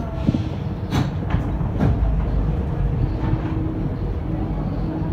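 Alstom NS-16 rubber-tyred metro train running, heard from inside the car: a steady low rumble with several sharp clacks in the first two seconds.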